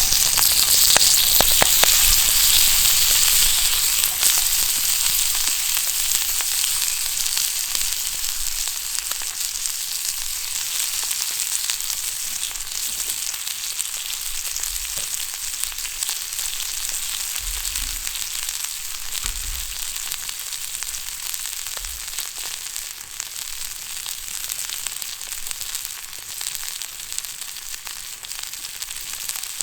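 Food sizzling in a hot pan: a loud, steady hiss that is strongest just after the food goes in and slowly dies down, with scattered small pops.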